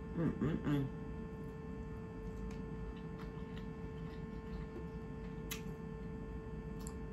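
Someone chewing crab, with faint scattered mouth clicks over a steady electrical hum; a brief vocal sound near the start.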